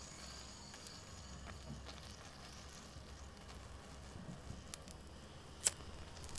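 Quiet room tone with a steady low hum and a few faint clicks, one sharper click about a second before the end.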